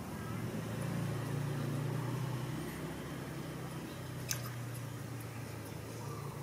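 A low, steady engine hum, like a vehicle running nearby, with one sharp click about four seconds in.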